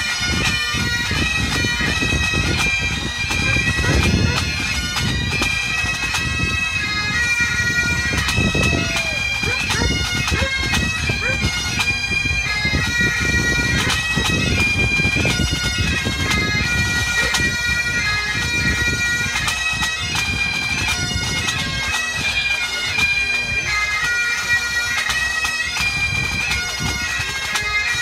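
Pipe band playing: Great Highland bagpipes carry a fast-changing melody over their steady drones, with snare, tenor and bass drums beating beneath.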